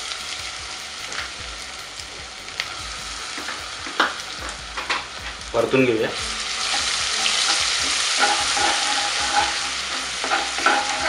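Crushed ginger-garlic paste sizzling in hot oil in a nonstick pan, louder from about six seconds in as a silicone spatula stirs it, with a few clicks and scrapes of the spatula against the pan.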